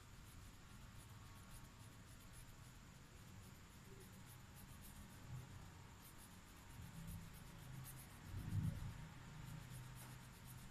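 Faint scratching of a felt-tip marker colouring in on paper, over a low background hum, with one dull low thump near the end.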